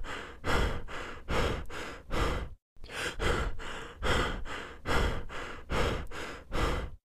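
Rhythmic heavy breathing, short breathy puffs about two a second. The breathing breaks off briefly a little before halfway and stops abruptly near the end.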